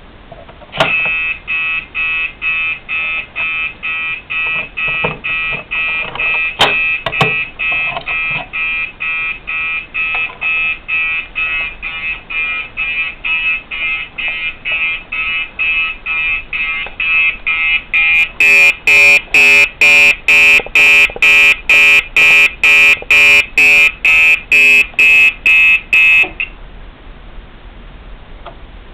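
Gentex SHG fire alarm horn sounding in fast, even pulses, about two to three a second. It starts about a second in, gets louder and fuller for its last several seconds, then cuts off near the end. A few sharp clicks sound during the first several seconds.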